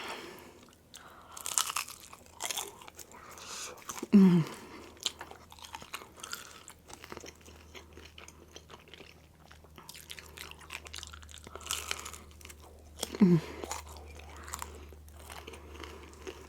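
Close-miked chewing and crunching of crispy fried rolled tacos, with irregular crackles and mouth sounds. A short falling hum from the eater comes twice, about 4 seconds in and again near 13 seconds.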